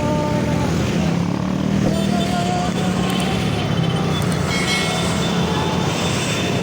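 Steady, loud engine and road noise of a moving vehicle, with faint tones coming and going above it.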